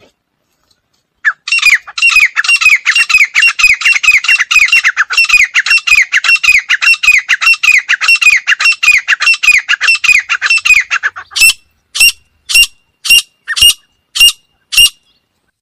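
Female grey francolin calling loudly: a fast run of sharp, downward-slurred notes, about four or five a second, for some ten seconds, then slowing to single shrill notes about two a second.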